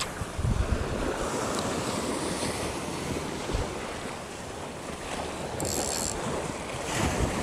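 Small choppy waves splashing and washing through shallow water, with wind gusting against the microphone in low buffets about half a second in and again near the end.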